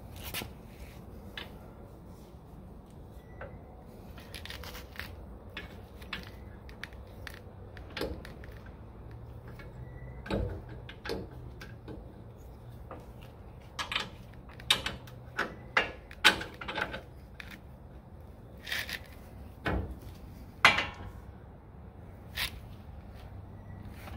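Metal clicks and knocks from a lower control arm and its bolts being handled and fitted into the frame mount by hand. Scattered at first, then a quick run of sharper knocks past the middle.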